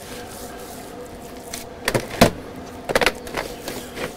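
Hands rubbing dry spice rub into raw pork ribs on a metal sheet pan, with a few sharp knocks about two and three seconds in, over a steady low hum.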